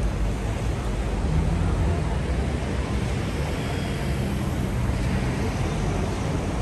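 Busy city street ambience: a steady low traffic rumble with passers-by talking in the background.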